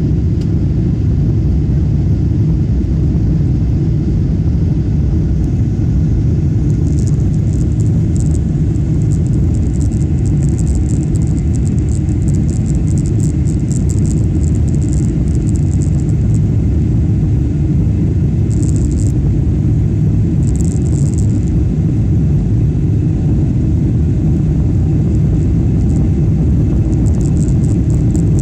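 Steady low cabin rumble of a Boeing 777-300ER climbing after takeoff: its GE90 engines and the rushing airflow heard from inside the passenger cabin. Faint, brief crackles come and go over it now and then.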